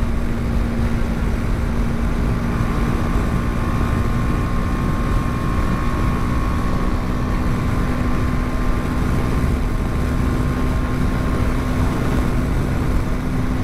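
BMW G 310 GS's 313cc single-cylinder engine running at a steady, unchanging pitch while cruising at about 120 km/h, mixed with heavy wind rush on the microphone.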